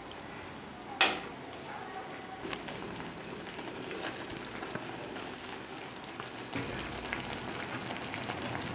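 Chicken in a coconut-milk gravy simmering in a non-stick frying pan, a steady bubbling and sputtering with many small ticks, as a wooden spatula stirs it. A single sharp tap about a second in.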